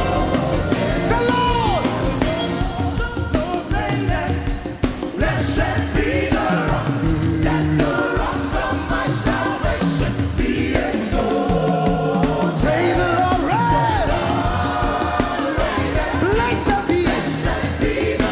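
Live gospel worship music: a band with drums and sliding bass runs under singing voices.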